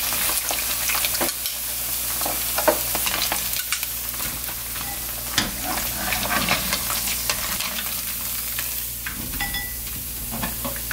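Hot oil sizzling and crackling in a wok as crisp, battered chicken gizzards are scooped out of the deep-fry with a wire-mesh skimmer at the end of their second frying. Scattered light scrapes and taps of the skimmer against the pan run through the steady sizzle.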